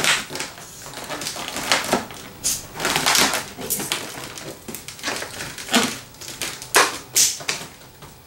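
Latex twisting balloons (260s) squeaking and rubbing against each other and the hands as they are handled and twisted, in irregular short squeaks and scrapes.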